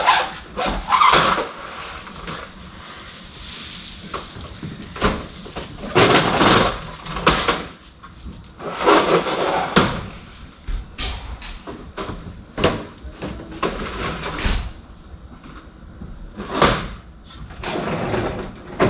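Noise from a house's front entrance: bursts of noise about a second long and sharp knocks, recurring at irregular intervals every few seconds.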